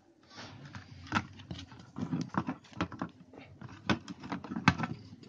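Plastic top housing of an electric iron being handled and fitted over its soleplate: irregular clicks and knocks of plastic on plastic and metal, a few sharper knocks among them.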